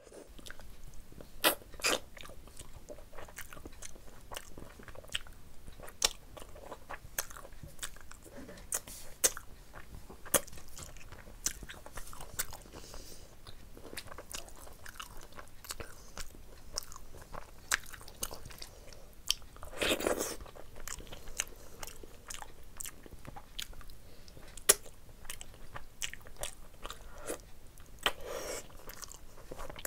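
Close-miked eating sounds from a person eating curry with rice and chicken on the bone by hand: frequent wet mouth clicks and chewing, with squelching as the fingers mix rice and curry. A longer, louder sound comes about two-thirds of the way through.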